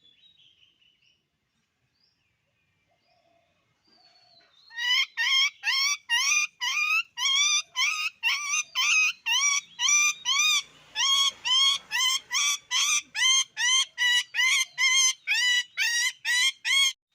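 A bird calling over and over: the same short, rising-and-falling pitched note repeated evenly, about two and a half times a second. The calls start about five seconds in, after a few seconds of near quiet.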